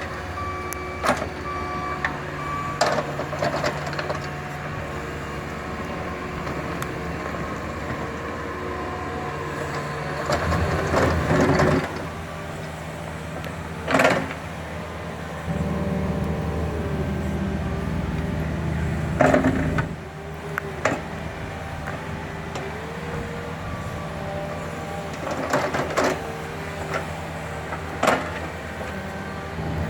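Excavator engine running under load, its hydraulics rising and falling in pitch as it digs. Several sharp metallic clanks and knocks come from the bucket, the loudest about a third and two-thirds of the way through.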